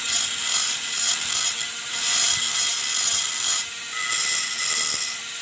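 Screwdriver tip scraping back and forth along the edge of a grass-trimmer plate's line slot, a scratchy rasp in repeated short strokes with a brief pause a little past halfway. The edges are being smoothed because their sharpness keeps cutting the nylon trimmer line.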